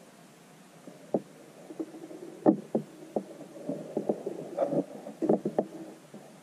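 Irregular knocks and clunks on an underwater camera rig, starting about a second in, as the rope line swings against it.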